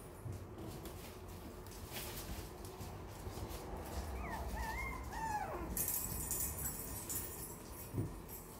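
Yorkshire terrier puppies playing, with a few short, high, wavering whines about halfway through and light clicks and scuffles of small paws on the hard floor.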